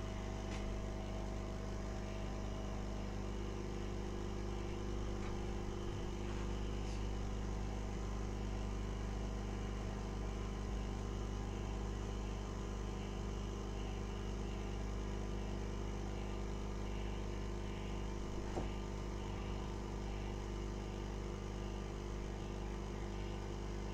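Hot air rework station blowing steadily, its fan giving an even rush of air with a steady hum, while it warms a phone's display adhesive.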